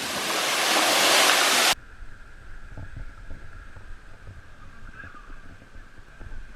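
Waterfall rushing loudly, growing louder for about a second and a half, then cut off abruptly and replaced by a much quieter low rumble with scattered light knocks.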